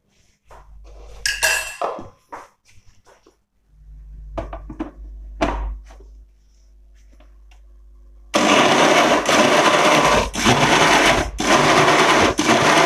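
Clinks and knocks of a steel spoon and bowl and the jar being handled. Then, about eight seconds in, an electric mixer-grinder starts and runs loud, blending a thin wheat-flour and sugar batter, with a few brief dips in its noise.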